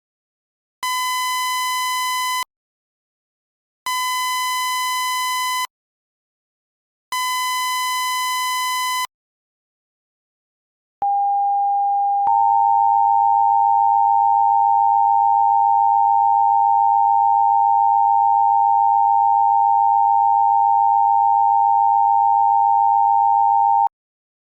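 Emergency alert tones: three long buzzy beeps a little over a second apart, then a steady attention tone that thickens and gets louder about a second after it starts and runs for about twelve seconds before cutting off near the end.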